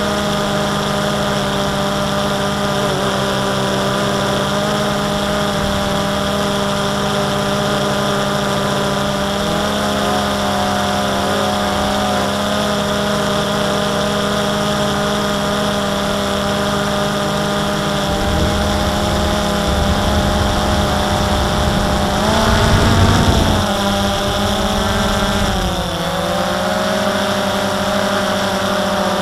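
DJI Phantom 2 quadcopter's electric motors and propellers whining steadily in flight, heard close up through the camera mounted on the drone. The pitch wavers and shifts as the drone manoeuvres near the end, and wind rumbles on the microphone shortly before that.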